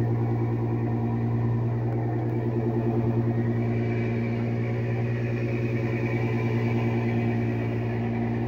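Fishing boat's inboard diesel engine running steadily under way: a deep, even hum with a fine regular throb.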